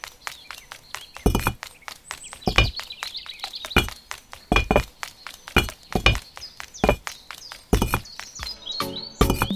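Fast, light ticking at about five a second, with heavier knocks landing roughly once a second, and bird chirps partway through.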